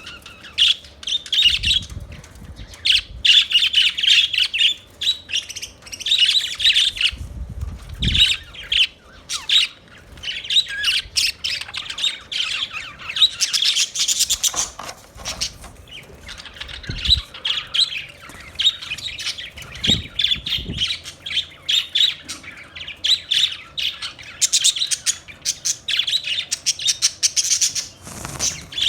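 Budgerigars chirping and chattering continuously, with dense rapid warbles and squawks overlapping from several birds, and a few low thumps now and then.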